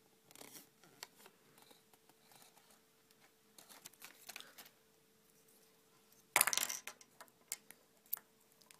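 Small plastic toy pieces being handled and set down: scattered light clicks and rustles, with a louder clatter about six seconds in and two sharp ticks near the end.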